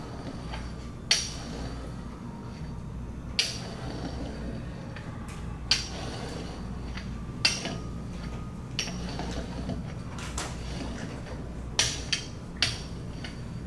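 Metal rolling pin rolling out dough on a wooden board, with sharp clinks and knocks every couple of seconds and three close together near the end.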